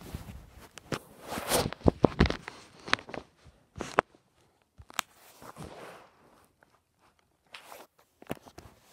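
Handling noise: irregular rustling, tapping and knocking of fingers and clothing against a handheld recording device, busiest in the first few seconds and sparser after that.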